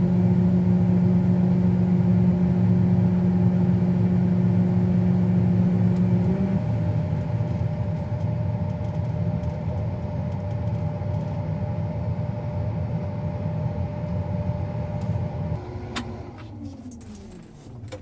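Vehicle engine and drivetrain running steadily, with a humming tone that drops out partway through. Near the end the running fades and falls in pitch as the machine slows down.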